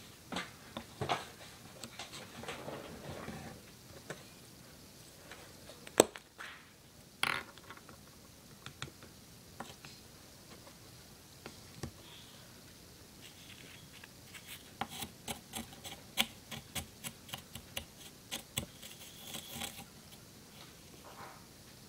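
Wooden craft stick stirring and scraping a glue mixture in small plastic cups: scattered scrapes and clicks, a sharp click about six seconds in, and a run of quick taps and clicks in the last third.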